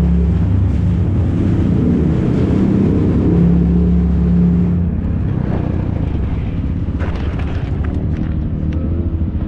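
ATV engines running, with a steady low drone that turns rougher and more uneven about halfway through, with some clatter.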